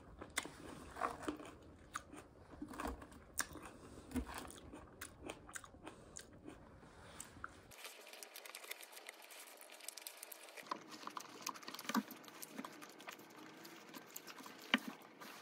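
Close-up eating sounds: chewing a salad of chicken, cherry tomatoes and granola, with many small clicks of wooden chopsticks against a plastic lunch container.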